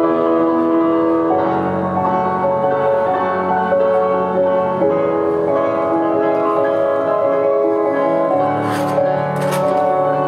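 Instrumental music for a figure skater's short program, playing over the ice rink's sound system in long sustained notes. Near the end two short sharp noises cut through it.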